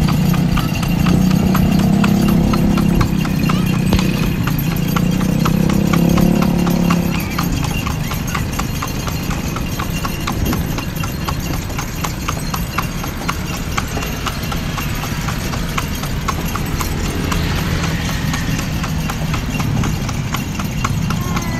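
A carriage horse's hooves clip-clopping on an asphalt road in a steady, quick rhythm of about four hoofbeats a second. A low engine hum lies under the hoofbeats for the first seven seconds.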